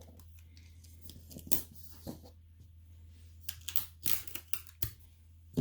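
Clear adhesive tape being pulled off its roll and torn, with paper and ribbon handled: a series of short ripping, crackling sounds, several close together near the end.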